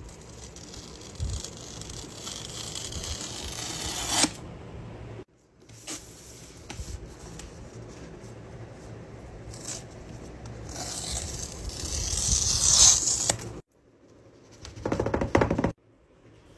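Paper tear-strips being pulled off a MacBook Pro box, a papery tearing rasp that builds up over a few seconds in two long pulls, the second louder and longer. It ends with a short burst of cardboard handling, and each pull cuts off suddenly.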